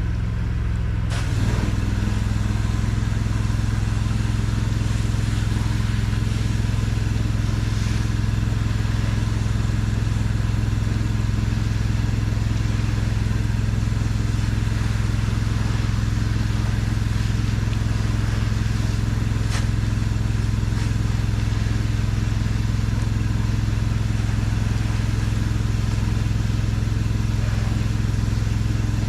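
Engine of a pressure-washing rig running steadily while the driveway is sprayed with soft-wash mix. About a second in, the engine note shifts and gets slightly louder, then holds steady.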